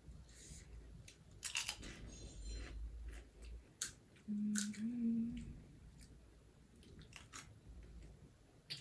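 Close-up crunching and chewing of crisp pani puri shells, with sharp crackles as a hollow shell is cracked open with the fingers. A brief hummed "mm" comes about four and a half seconds in.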